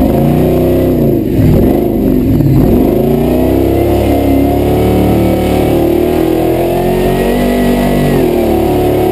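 Supercharged V8 engine of a Toyota Landcruiser competition truck, heard from inside the cab, revving up and down in quick surges for about the first three seconds, then running at steadier revs.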